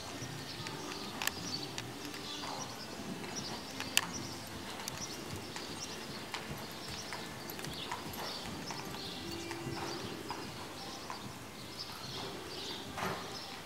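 Horse trotting on loose sand arena footing: soft, repeated hoofbeats, with a sharp click about four seconds in.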